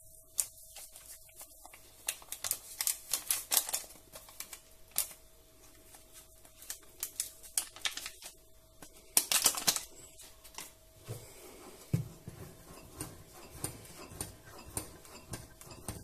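Small paper sachets of baking powder being torn open and crinkled over a mixing bowl: irregular sharp crackles and clicks, densest about two to four seconds in and loudest around nine seconds in.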